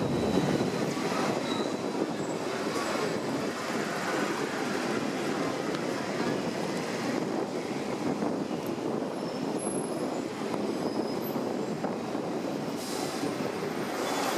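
Hong Kong double-decker electric tram running along street rails, heard on board: a steady rumble and rattle of its wheels on the track. A faint high wheel squeal comes in briefly near the start.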